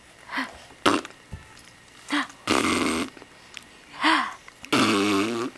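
A string of short, silly burp-like mouth noises, about five of them, with a sharp click about a second in; the last and longest, near the end, is a raspy, wobbling burp.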